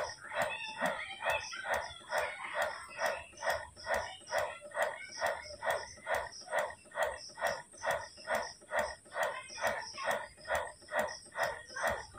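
Electric breast pump running, its motor pulsing in an even suction rhythm of about two cycles a second, with a steady high whine underneath.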